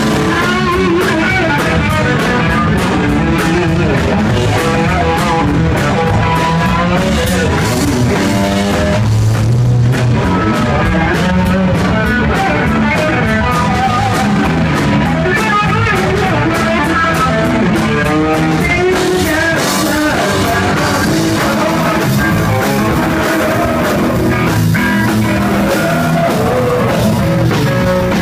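Live rock band playing loudly, with electric guitar, drum kit and a man singing into a handheld microphone.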